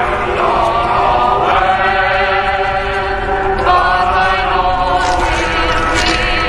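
Background score music: a choir chanting long held notes over a steady low drone, the voices stepping up in pitch partway through and wavering in vibrato near the end.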